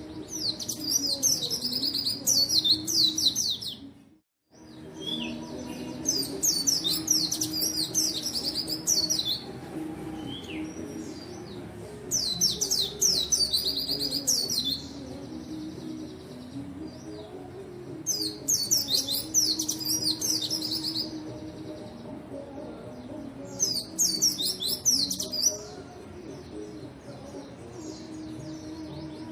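White-eye (pleci) singing in bursts of rapid, high chirping warbles, each about two to three seconds long and repeated about every six seconds. The song is a lively full song, the kind used to prompt other white-eyes to sing.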